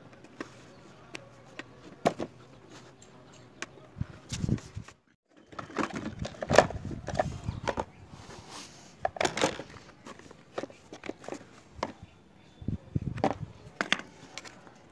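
A plastic toy truck being unscrewed and taken apart by hand: scattered clicks of a screwdriver in the screws, with clusters of hard plastic parts knocking and clacking together as the body is lifted off and handled.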